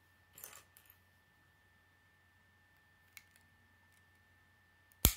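Plastic Lego bricks being handled and pressed together: a short rustle about half a second in, a few faint clicks, and one sharp, loud snap near the end.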